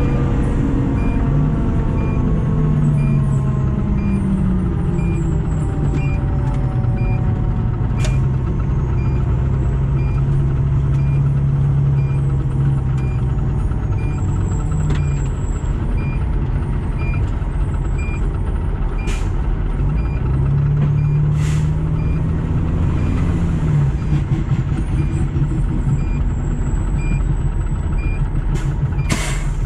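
2010 Pierce Arrow XT fire engine running as it pulls up, its mechanical Q siren winding down in falling pitch over the first several seconds. A short beep repeats about once a second throughout, and there are a few short sharp hisses near the end.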